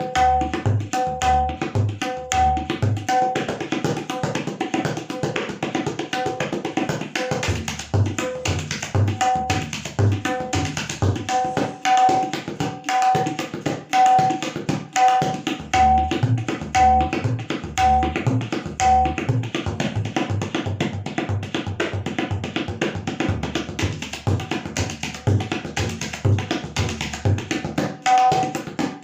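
Tabla playing a fast rela, a rapid unbroken stream of strokes imitating a running train. Deep bass strokes on the bayan come under ringing strokes on the dayan, which fall away for several seconds in the later part.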